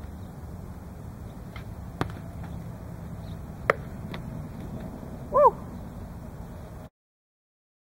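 Atlatl dart duel: a few sharp knocks of darts striking, the sharpest about halfway through, then a short high rising-and-falling call near the end, after which the sound cuts off abruptly.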